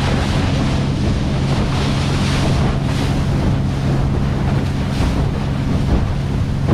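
Boat's motor running at a steady pitch while under way, with wind noise on the microphone and water rushing and splashing past the hull.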